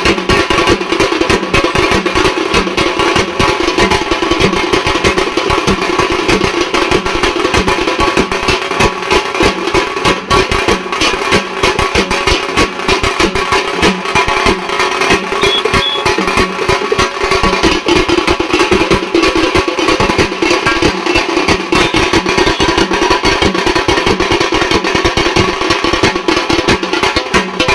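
Satti melam street drumming: two drummers beating a steel-shelled drum and a small double-headed drum with sticks in a fast, dense rhythm that runs on without a break. The hits ring with a metallic tone.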